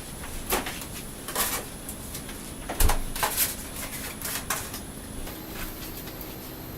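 Scattered knocks and clicks of kitchen cupboards and doors being opened and shut, about half a dozen, with a heavier thump about three seconds in.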